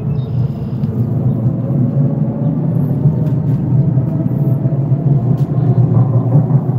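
Steady low rumble of road traffic, with a faint engine hum.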